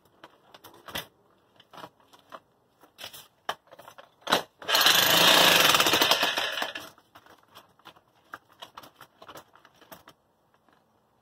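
Corded electric demolition hammer (jackhammer) chiselling into the concrete footing around a steel fence post bracket. It runs in one burst of rapid hammering about two seconds long, near the middle. Before and after the burst there are scattered sharp knocks and clicks.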